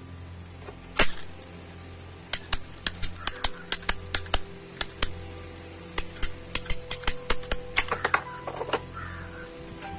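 Ratchet PVC pipe cutter clicking as it is squeezed through a plastic pipe: one sharp click about a second in, then two runs of rapid clicks, about four a second, with a short pause between them.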